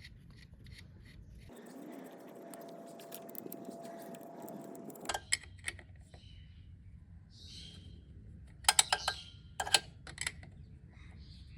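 Light metallic clicks and clinks of small parts and tools being handled. A hissy stretch with a faint steady tone runs for a few seconds, then a quick cluster of sharp clicks near the end is the loudest part.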